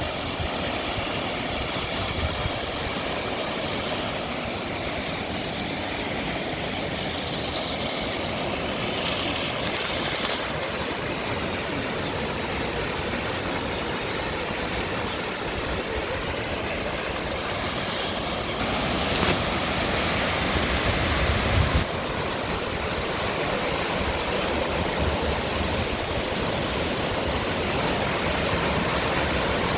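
Steady rushing roar of the Düden Waterfall's falling water, briefly louder about two-thirds of the way through.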